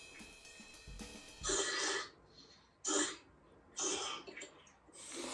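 Noodles being slurped, several short noisy slurps one after another.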